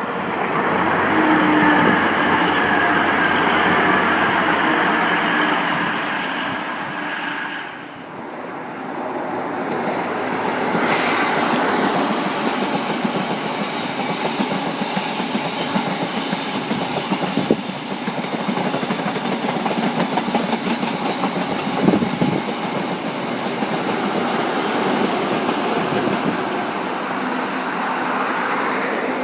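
A passenger train running through on the rails, its wheels clattering over the track joints under a continuous rush. A slowly falling whine sounds in the first several seconds, and the level dips briefly about eight seconds in before the train noise builds again.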